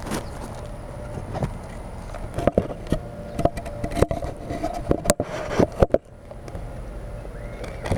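Birds pecking and scrabbling at seed in a Plexiglas bird feeder, heard close up from inside the feeder: irregular sharp taps and scrapes, with a few louder knocks about five to six seconds in.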